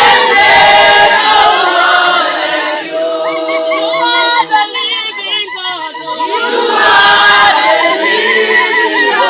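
A congregation singing together in chorus without instruments, many voices at once, with short noisy bursts near the start and about seven seconds in.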